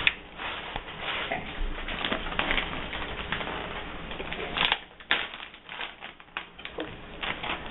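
Plastic zip-top bag being pulled open and handled: irregular crinkling and small clicks, with a couple of sharper clicks about five seconds in.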